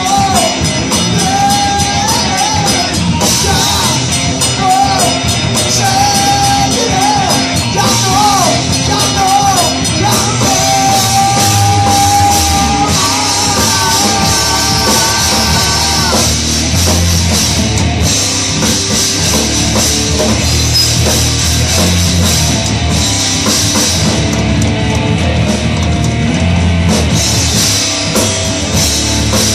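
Live rock band playing: a man singing into a microphone over electric guitar, bass guitar and drum kit. The singing stops a little past halfway and the band plays on without vocals.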